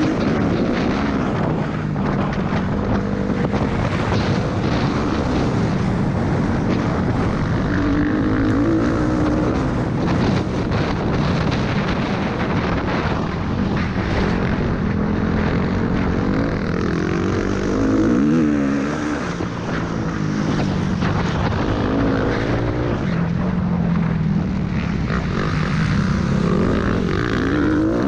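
Suzuki RM-Z motocross bike's single-cylinder four-stroke engine, revving up and falling off again and again as the bike accelerates out of and slows into corners, with wind rushing over the microphone.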